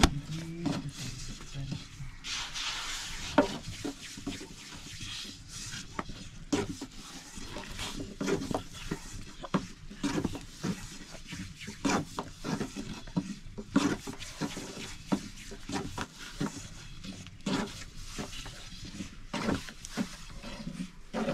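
Long thin wooden rolling pin rolling and knocking on a wooden board as flatbread dough is rolled out thin, giving irregular clicks and knocks throughout.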